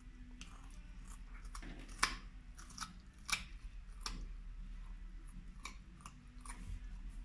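Bernese mountain dog puppy chewing a raw carrot: a run of sharp, irregular crunches as its teeth break the carrot, the loudest about two seconds in.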